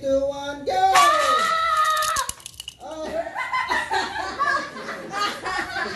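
Children's voices: a long, high-pitched squeal about a second in, followed by laughter.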